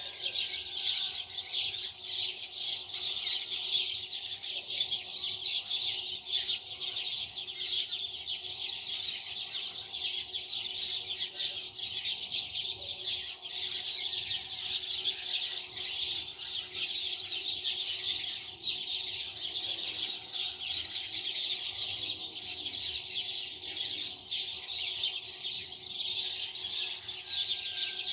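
Birds chirping in a dense, continuous chorus of high twittering that never lets up.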